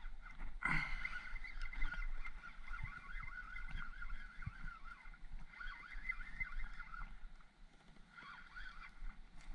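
Spinning fishing reel whirring in uneven spells as line is cranked in against a hooked striped bass, with a few light knocks of gear against the kayak hull.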